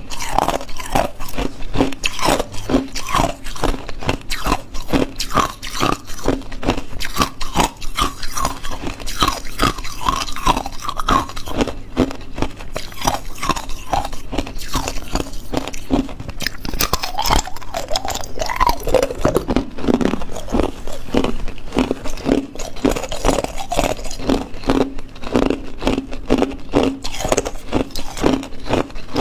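Hard ice being bitten and chewed close to the microphone: a slab of moulded ice cubes cracking and crunching between the teeth in a continuous rapid run of sharp crunches.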